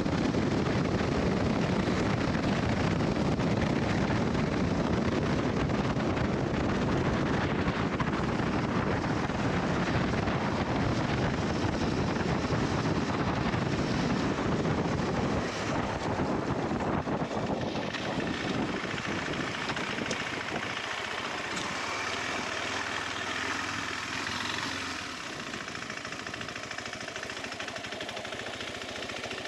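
KTM 390 Adventure's single-cylinder engine running while the motorcycle is ridden, with wind rushing over the microphone. The sound eases off from about halfway through and drops again near the end as the bike slows down.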